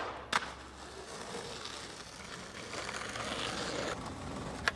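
Skateboard clacking against a concrete curb twice at the start, then its wheels rolling over brick paving with a steady hiss, and a sharp clack near the end.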